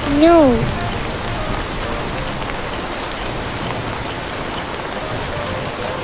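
Steady rain falling, an even hiss throughout, with a short call of "No" about a third of a second in.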